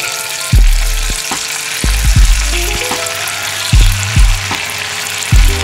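Layered potato stack deep-frying in a pan of hot oil, sizzling and bubbling steadily. Background music with a bass beat plays over it, and its bass hits are the loudest moments.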